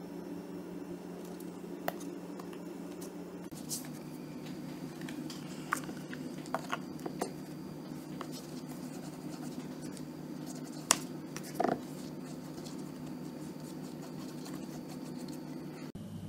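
Soft handling sounds of pink fondant being pressed onto and peeled off a textured embossing plate, with scattered small clicks and taps on a wooden board, the loudest a little before and after the middle. A steady low hum runs underneath.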